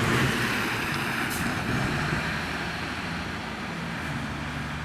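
Motor vehicle driving, a steady engine hum under road noise that slowly fades.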